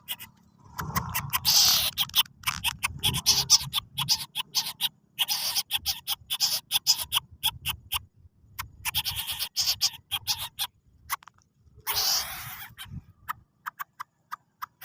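Lesser coucal (bubut alang-alang) giving unusual calls: rapid irregular runs of sharp clicks and hissy bursts, over a faint low hum.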